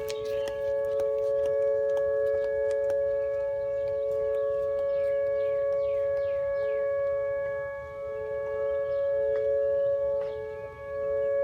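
Outdoor tornado warning siren sounding a steady alert: two notes held together at a constant pitch, with no rising or falling wail. It is a scheduled test of the siren.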